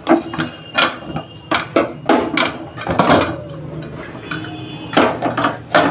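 Aluminium Tempo pressure cooker lid being turned free and lifted off: a string of irregular metal clanks and clinks, some ringing briefly.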